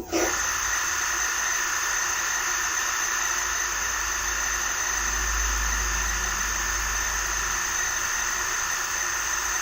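GMCC KSK89 inverter compressor being driven but failing to start: a steady high-pitched whine over a low hum that swells in the middle. It is the noise of a failed start, which the board reports as a compressor out-of-step fault.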